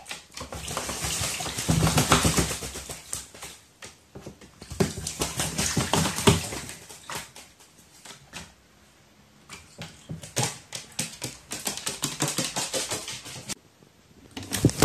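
A crow bathing in a shallow plastic tray of water: bursts of splashing and wing-fluttering with short pauses, and a quieter stretch a little past the middle.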